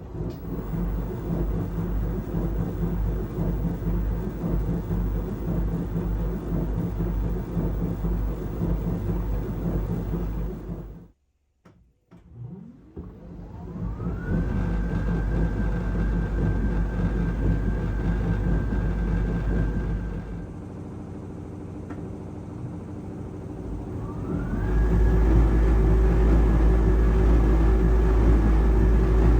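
Beko HygieneShield washing machine running with a loud low rumble, the noise problem being shown. After a short gap the motor whines up in pitch as the drum speeds up and holds a steady whine. The whine drops away for a few seconds, then climbs again near the end with the rumble louder.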